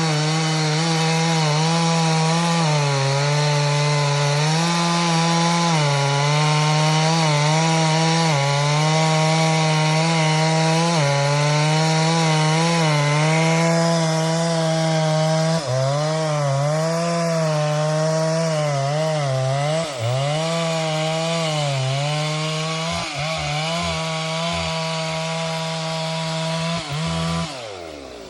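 Stihl 064 two-stroke chainsaw running at high revs in a cut, its pitch sagging and recovering as it loads up. About halfway the high sawing hiss fades and the revs dip more often. Near the end the engine winds down to idle.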